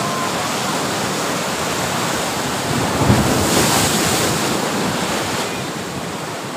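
Sea surf: waves washing in as a steady rush, swelling to its loudest about three seconds in and easing off toward the end.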